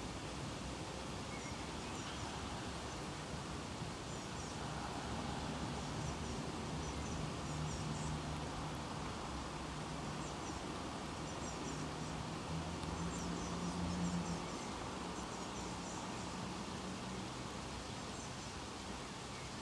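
Faint, high chirps of small songbirds in short clusters every second or two, over a steady outdoor hiss. A low hum swells through the middle and fades out after about 17 seconds.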